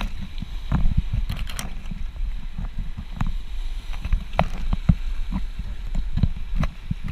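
Wind buffeting the camera microphone with a steady low rumble, over scattered short knocks and splashes of footsteps across wet rock and shallow seawater.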